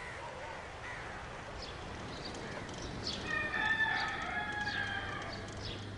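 A rooster crows once: one long call starting about three seconds in and lasting some two seconds, over faint short bird chirps.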